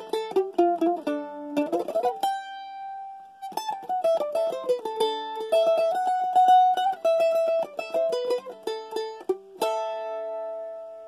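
Acoustic mandolin played solo: a quick run of picked single notes, a fast strum about two seconds in, then a melody with rapidly repeated picked notes. It ends on a strummed chord, struck near the end and left ringing and fading.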